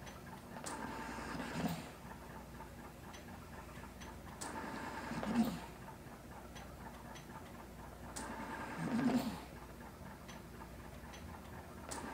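Mechanical ventilator cycling, a breath pushed through the tubing about every four seconds. Each breath is a rush of air that swells for about a second and ends in a short low puff, with faint clicks between breaths.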